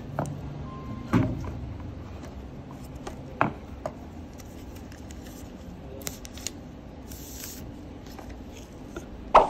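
Handling noise from unboxing a smartphone: several short knocks and clicks as the phone is lifted out of its cardboard box tray and turned over in gloved hands, over a steady low hum. The sharpest knock comes near the end.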